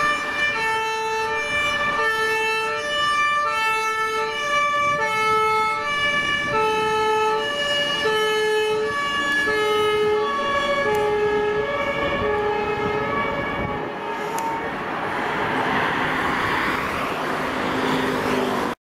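Belgian fire service van's two-tone siren, a high and a low note alternating steadily, fading away about fourteen seconds in. Road traffic noise follows, and the sound cuts off suddenly near the end.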